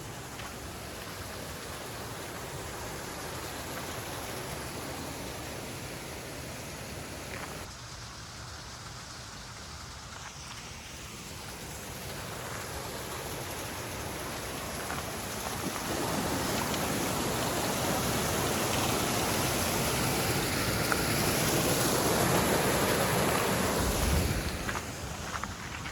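Running water rushing steadily, as from a mountain stream or cascade, with an abrupt shift about a third of the way in and growing louder from about two-thirds of the way through.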